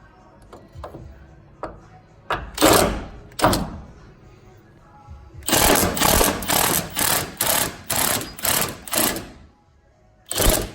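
Impact wrench backing out a fuel tank strap bolt in short bursts: two bursts, then a run of about seven quick bursts at roughly two a second, and one more near the end. The bolt is only being run out part way so its threads can be lubricated, with short bursts to keep the heat down.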